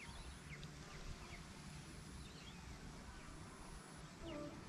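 Faint outdoor ambience: scattered short, falling bird chirps over a low steady background hum, with a thin high-pitched tone that comes and goes.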